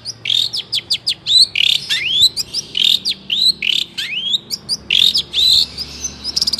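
Long-tailed shrike (cendet) singing a fast, varied chattering song: a rapid run of short rising and hooked whistled notes mixed with sharp clicks, several notes a second without a break.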